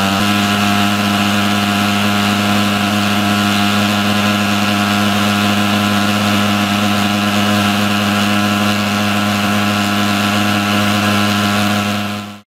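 Igeba TF 35 thermal fogger's pulse-jet engine running steadily, a loud even drone; it stops abruptly near the end.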